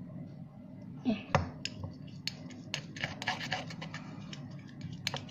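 Quick short scraping and sticky clicking, several a second, from working glue for slime in a container.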